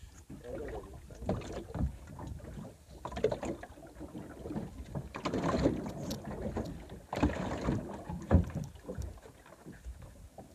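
Irregular splashing and sloshing of water at a small boat's side as a hooked fish thrashes at the surface, with knocks and thumps against the boat, one sharp thump near the end.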